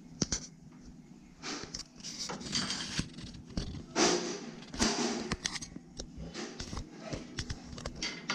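Replacement tap seat being screwed by hand into a worn shower-tap body with a small hand tool: irregular metal scraping and rasping in short turns, with a few sharp clicks.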